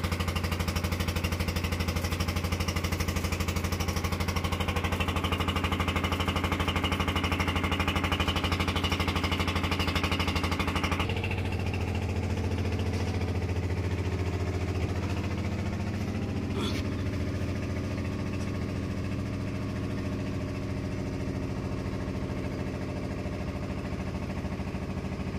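Engine running steadily with a fast, even pulse. A higher hiss over it cuts off suddenly about eleven seconds in, and a single sharp click comes a few seconds later.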